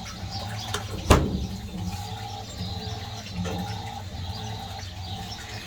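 Fisher & Paykel MW511 washing machine agitating a load in water: sloshing over a steady motor hum, with faint squeaks and one sharp knock about a second in.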